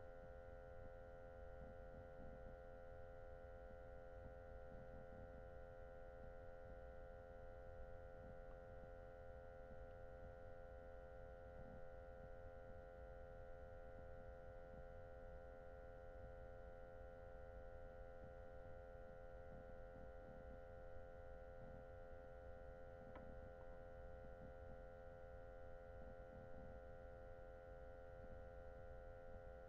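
Near silence with a faint steady electrical hum made of several held tones, and one faint click about two-thirds of the way in.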